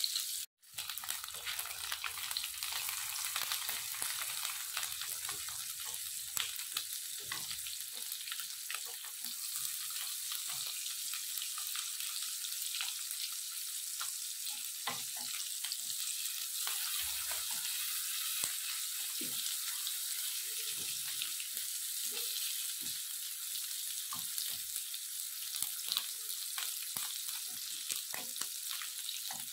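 Food frying in an oiled pan, sizzling steadily, with scattered light clicks of stirring. The sound cuts out for a moment about half a second in.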